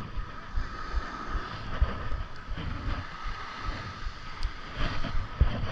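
Wind buffeting the microphone in irregular low gusts over the wash of small surf breaking on a sandy beach, with a faint steady high whine.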